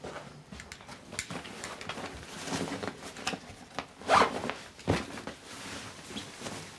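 Irregular rustling and scraping handling noises with short zip-like rasps, loudest about four seconds in and again just before five seconds.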